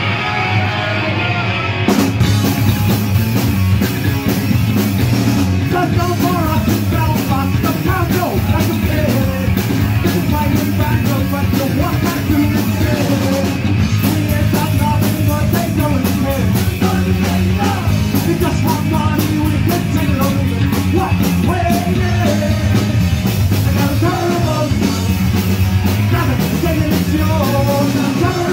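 Live punk rock band. An electric guitar plays alone for about two seconds, then drums, bass and guitars come in together, and a singer starts about six seconds in.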